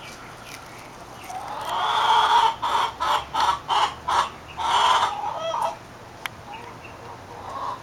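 A hen calling: a drawn-out squawk, then a quick run of about five short clucks, another drawn-out squawk and a few fainter clucks.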